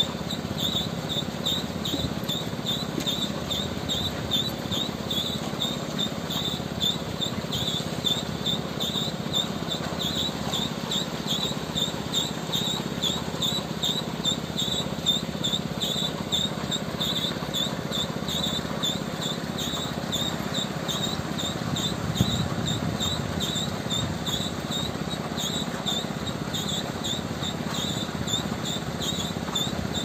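Concrete mixer truck's diesel engine running steadily with a low hum while the drum turns to discharge concrete. A regular high chirp, about three a second, repeats over it throughout.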